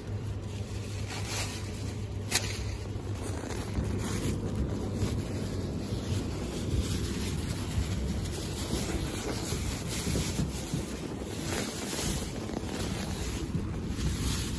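Steady rumbling, rustling noise of a handheld camera's microphone being rubbed and handled by gloved hands, with one sharp click a couple of seconds in.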